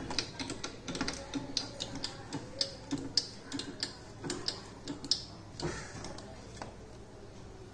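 Hand screwdriver turning a screw into a steel TV wall-mount plate on the back of an LED TV: a run of small, irregular clicks, about two or three a second, that stops about five and a half seconds in.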